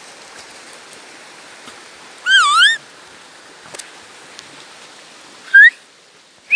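High-pitched whistled calls over a steady background hiss: one wavering call about two seconds in, then two short rising calls near the end.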